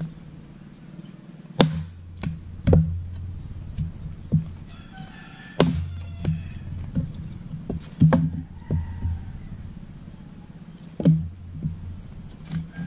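Axe blows splitting firewood logs: a dozen sharp chops, the heaviest four about three seconds apart. A rooster crows about five seconds in.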